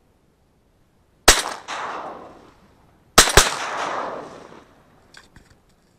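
Shotgun shots at ducks over a lake: one shot about a second in, then two more in quick succession a couple of seconds later. Each shot leaves a long fading echo.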